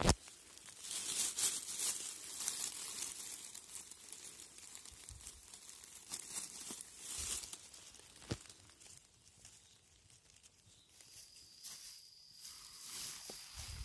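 Dry fallen leaves rustling and crunching under footsteps and a hand as a porcini mushroom is reached for and picked from the leaf litter. Sharp clicks at the start and about eight seconds in.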